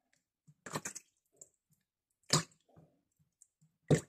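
Spoonfuls of vegetable oil tipped from a metal tablespoon into a bowl of brine, each landing with a short wet splash: three of them about a second and a half apart, the last the loudest.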